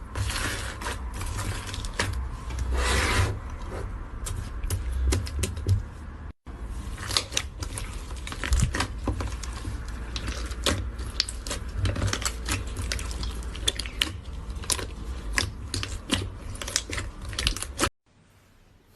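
Iceberg slime being pressed and squished in the hands, its hardened crust giving dense crackles and sharp pops. There is a brief break about a third of the way in, and the sound stops shortly before the end.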